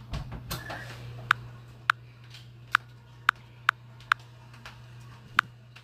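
A brief rustle, then a series of sharp clicks at uneven intervals, about seven in all, over a steady low hum.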